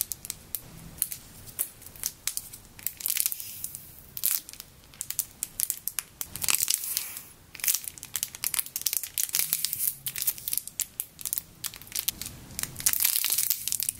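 Clear plastic bags around foam squishy toys crinkling as hands turn and squeeze them, in quick irregular crackles.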